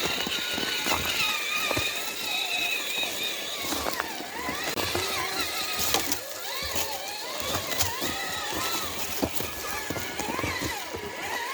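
Electric motors and geartrains of RC crawler trucks whining as they drive over snow, the pitch rising and falling with the throttle. Scattered clicks and knocks are heard throughout.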